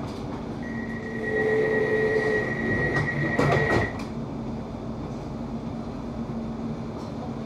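Class 710 electric train's door-closing warning tone sounding for about three seconds. It ends with a few knocks as the sliding doors shut, over the train's steady electrical hum.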